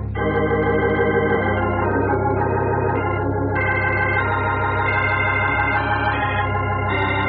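Organ music bridge between radio-drama scenes: held chords over a steady low bass, moving to a new chord every second or so.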